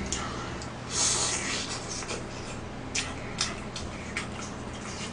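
Close-up eating sounds of tteokbokki: a loud hissing slurp about a second in, then a few sharp clicks of chopsticks against the plastic takeaway tub.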